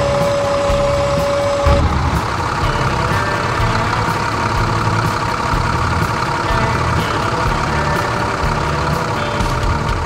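Cartoon tractor engine sound effect running steadily, with a steady whine over it that stops about two seconds in.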